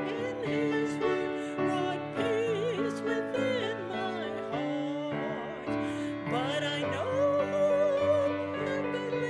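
A woman singing a hymn solo with strong vibrato over piano accompaniment, holding a long note near the end.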